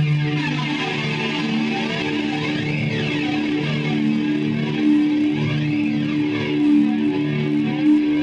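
Electric guitar playing during a band's sound check, long held notes ringing over a steady low tone.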